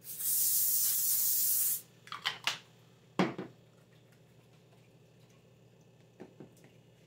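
Aerosol can of cooking spray hissing in one steady burst of about two seconds as it coats a sheet of aluminium foil. A few light clicks and a single knock follow.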